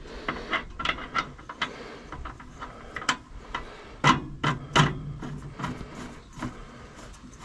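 Irregular clicks, taps and knocks of something being handled and worked by hand, with the loudest knocks about three to five seconds in.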